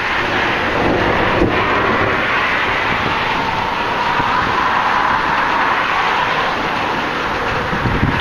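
Steady rushing noise of a thunderstorm's wind and rain, with a faint wavering tone in the background from about three to six and a half seconds in.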